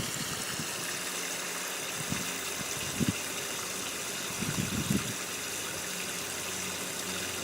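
Water running steadily out of a well pressure tank through an open valve as the tank drains down, the well pump off.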